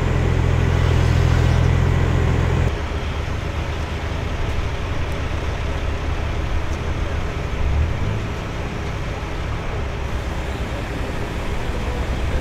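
Engine running at raised revs, then dropping abruptly to a lower, pulsing idle nearly three seconds in. It is most likely the picker truck's engine.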